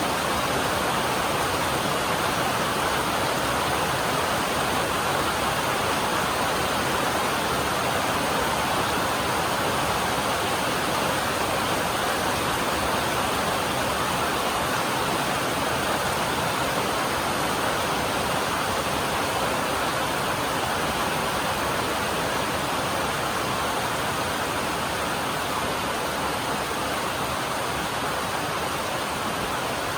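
Steady heavy rain drumming on a metal roof, a dense even hiss with no single drops standing out.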